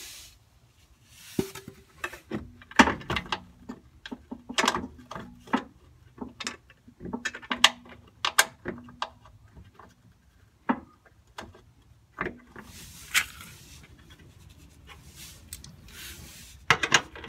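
Bolts being threaded by hand into steel running-board mounting brackets under an SUV: a scattering of short, sharp metal clicks and taps as bolts and brackets are handled. A faint steady hum sits under the last few seconds.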